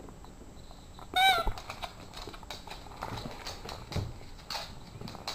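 A squeaky dog toy squeaks once, short and loud, about a second in. It is followed by scattered quick clicks and scuffles as the dogs play.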